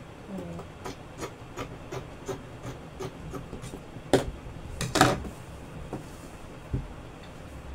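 Fabric scissors snipping through adire cloth in a quick, even run of about three snips a second, with two louder snaps about four and five seconds in. A soft knock follows near the end.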